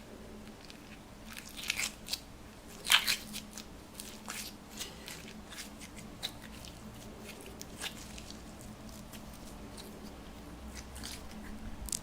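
Slime being worked by hand, giving an irregular run of crackling clicks and crunches, loudest about three seconds in and picking up again near the end.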